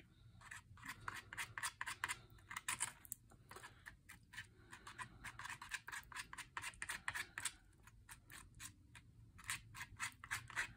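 Plastic palette knife stirring and scraping a gritty mix of black gesso and sand texture gel against a plastic palette: faint, quick scratchy strokes, a few a second.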